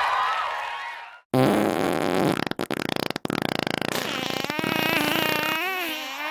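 About a second in, after a brief break, a dubbed-in wet fart sound effect starts: a long, buzzing, sputtering blast of rapid pulses. Near the end it turns into a wavering, higher-pitched squeaky tone.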